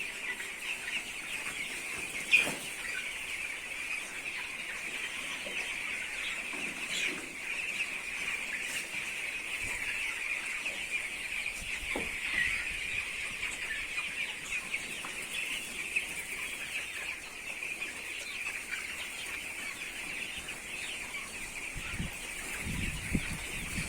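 A flock of chickens clucking steadily, with a sharp click about two seconds in and a low rumble coming in near the end.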